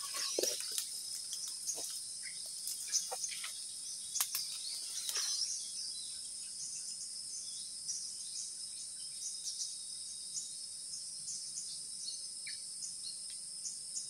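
A steady high-pitched drone of forest insects, with scattered short bird chirps over it. A few light rustles and clicks in the first five seconds or so.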